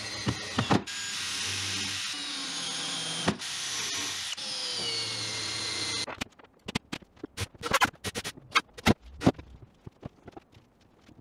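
Cordless drill driving screws through the cabinet corner into a wooden leg. It runs steadily in a few long pulls with brief stops and stops about six seconds in; after that come scattered clicks and knocks.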